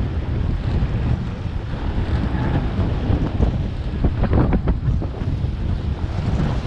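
Strong wind buffeting the microphone, a steady low rumble, with choppy water splashing around the small boat and a few louder splashes about four seconds in.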